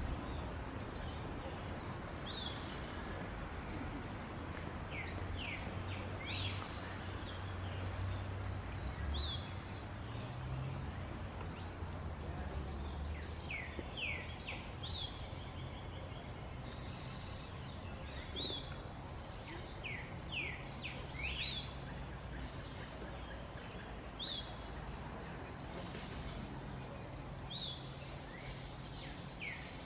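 Short, high bird chirps, quick sweeping notes that come in small clusters every few seconds. Behind them run a steady low rumble of outdoor noise and a thin, continuous high tone.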